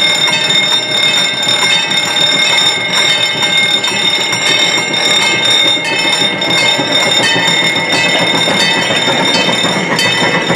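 Railroad crossing signal bell ringing steadily while the crossing gates are down, over the rolling noise of a small train approaching the crossing.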